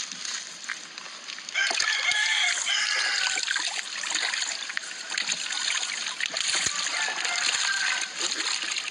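A loud pitched animal call beginning about a second and a half in and lasting over a second, over a steady high hiss.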